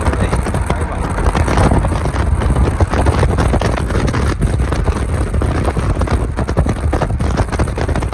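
2019 Toyota Corolla 2.0 in motion: a steady low rumble of engine and road noise, with many small irregular clicks throughout.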